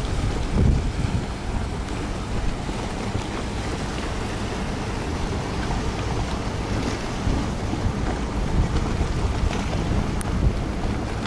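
Wind buffeting the microphone as an uneven low rumble, over the open-water ambience of a harbour.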